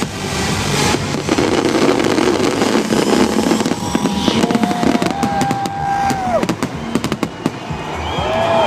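Fireworks display: rapid crackling and popping bursts, one on top of another.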